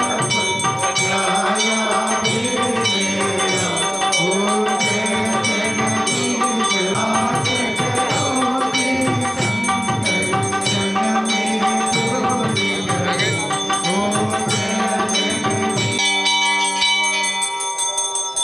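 Hindu devotional music: a voice singing a chant over a fast, steady shaking rhythm with sustained ringing tones. About two seconds before the end the singing drops out and a held tone fades away.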